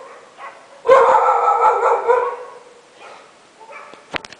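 A dog barking at night: one long, drawn-out howling bark lasting over a second, starting about a second in, then a fainter call and a sharp click near the end.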